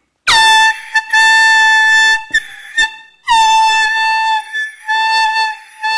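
Handheld air horn sounding several loud, long blasts at one steady pitch with short gaps between them, the first dropping sharply in pitch as it starts.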